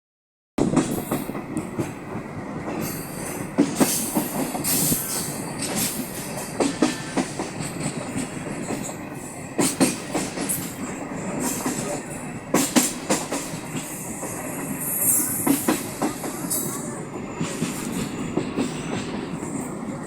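A moving passenger train heard from aboard: a steady rumble of wheels on the rails with irregular sharp knocks, and brief high-pitched stretches about five seconds in and again near fifteen seconds.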